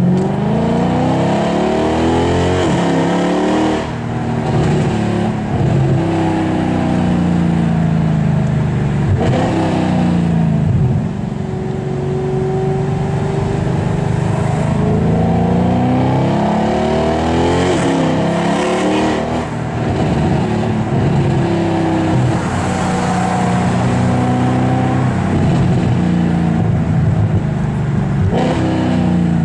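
Mercedes C63 AMG Black Series 6.2-litre V8 with an IPE aftermarket exhaust, heard from inside the cabin, pulling hard through the gears: the engine note climbs in pitch and drops back at each gear change several times, with steadier cruising stretches in between.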